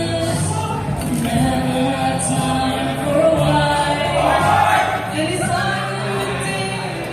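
Music with singing voices and a steady bass line.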